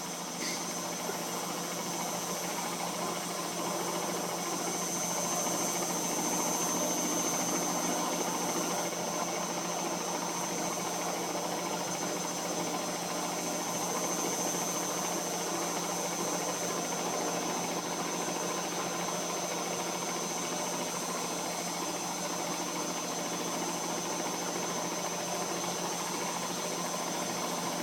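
Front-loading washing machine running a wash cycle, its drum turning with a steady motor hum and a faint high whine.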